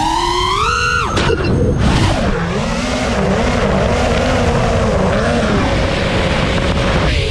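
Six-inch FPV quadcopter's Emax 2306 2750kv brushless motors on 6S spinning Gemfan props. The motor whine rises in pitch, then drops sharply about a second in as the throttle comes off. After that comes a steady, wavering motor hum with the rush of air over the drone.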